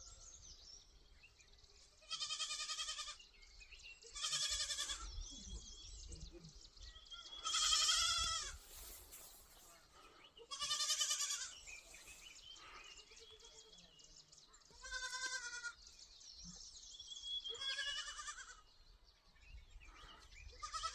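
Goats bleating repeatedly: about seven quavering bleats, each about a second long, spaced a few seconds apart.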